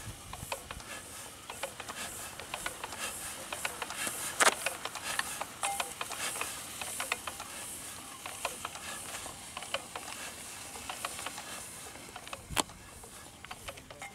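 Scattered metallic clicks and taps of hands and a spanner working the fuel-line fittings at the injector of a stopped Petter diesel engine, with one sharper knock about twelve seconds in.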